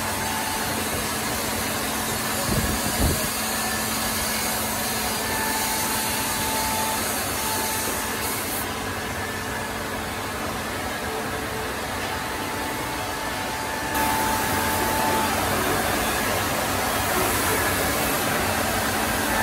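Woodmaster 4-axis, 16-spindle CNC wood milling machine running, its cutters machining turned wooden chair-leg blanks: a steady mechanical whir with a constant hum. A brief low thump comes about two and a half seconds in, and the noise steps up louder about fourteen seconds in.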